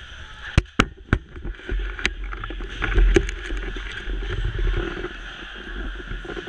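A few sharp knocks and clicks of a camera being handled against the rink boards, the loudest in the first second or so and a small cluster about three seconds in, over the steady low rumble of an ice hockey arena.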